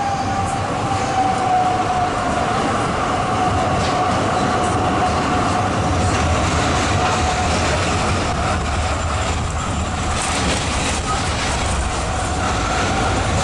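A Zürich tram running along street track, heard through an open window. The wheels rumble on the rails under a steady whine, and a second, higher tone joins near the end.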